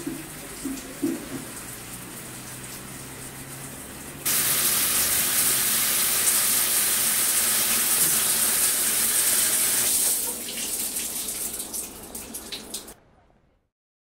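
Shower head spraying water onto tiled walls: a loud, even hiss that starts abruptly about four seconds in, runs for about six seconds, then thins out and stops near the end. Before it, a quieter steady hiss with a few light knocks in the first second.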